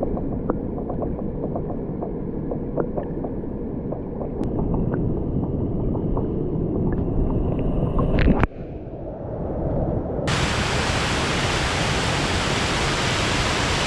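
Rushing water of a waterfall pool heard muffled from under the surface, with small pops and clicks of bubbles. About eight seconds in a knock is heard, and then the camera comes up into the air and the full bright rush of the waterfall and stream takes over.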